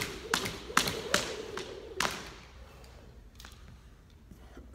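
Half-pound weighted jump rope's coated cable slapping a hardwood floor on each turn, about two and a half slaps a second, along with the jumper's landings. The slaps stop about two seconds in.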